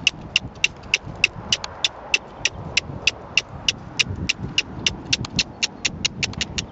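Repeated sharp tongue clicks, about three or four a second, urging a loose horse on, over a low rumble.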